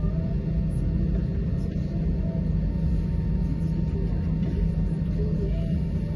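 Steady low rumble inside the cabin of an Airbus A320 on the ground after landing.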